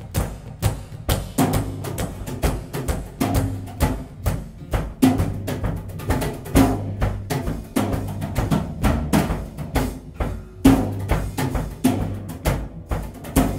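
Rock band's rehearsal recording: a drum kit keeping a steady beat over a low bass line.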